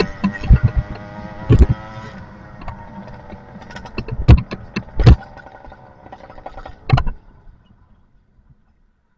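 52 mm two-stroke engine with an expansion muffler winding down, its note fading over the first couple of seconds. A few sharp knocks and rattles follow over a low rumble while rolling, and little is left after about eight seconds.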